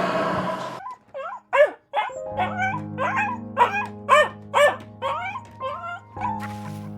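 A run of about ten short, high whining animal calls, each bending up and down in pitch, roughly two a second, over soft piano music. A rushing noise stops just under a second in, before the calls begin.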